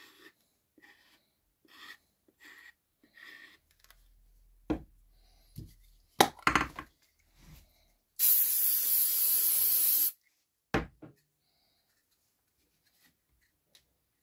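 Aerosol can spraying in one steady hiss of about two seconds, the loudest sound. Before it come a run of soft short squirts from a glue bottle being squeezed and a few sharp knocks of things set down on a workbench.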